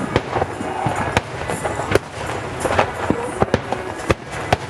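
Fireworks display: aerial shells bursting in quick succession, about ten sharp bangs over a continuous crackling rumble.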